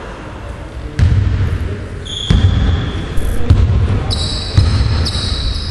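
Basketball dribbled on a wooden gym floor: a slow dribble of about one low bounce a second, starting about a second in.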